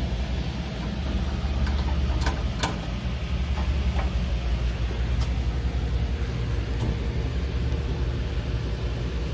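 A steady low machine hum, like an engine idling nearby, runs throughout. A few light clicks and taps sound over it as the igniter wire is fed through a hole in the grill's steel body.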